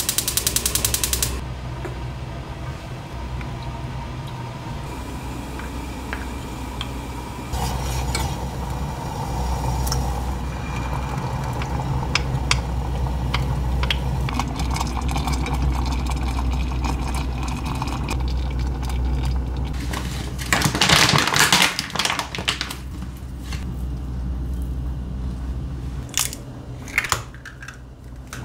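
Gas cooktop igniter ticking rapidly for about a second as a burner lights under a small enamel milk pan. A steady low hum follows, with scattered clinks of spoon, pan and bowl. A louder noisy rush lasts about two seconds around two-thirds of the way through.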